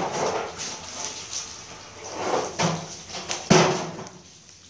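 Three short knocks or thumps, the last and loudest a sharp one about three and a half seconds in, over a faint steady hiss.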